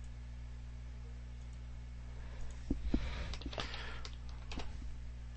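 A short run of computer keyboard keystrokes from about halfway through, typing a short name, over a steady low electrical hum.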